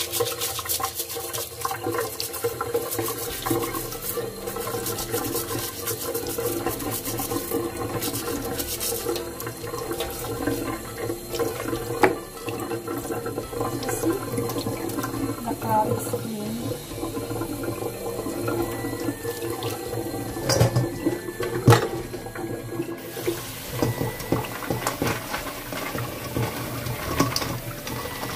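A kitchen tap runs into a stainless steel sink while blue crabs are rinsed and handled under the stream, the water splashing over the shells and later into a metal bowl. A few sharp knocks come through, the loudest about 12 s and 21 s in.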